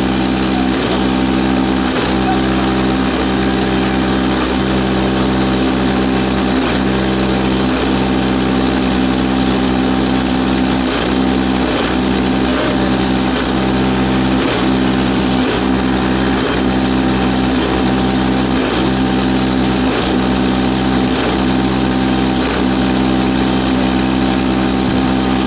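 Comer 50cc two-stroke kart engine idling steadily at a standstill, an even, unchanging note with no revving.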